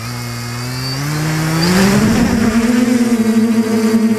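Electric motors and propellers of a DJI Flamewheel 450 quadcopter spinning up for takeoff: a whine that climbs in pitch and grows louder over about two and a half seconds, with a brief rush of air around the middle, then settles to a steady pitch as it flies. Heard through the camera mounted on the airframe, close to the props.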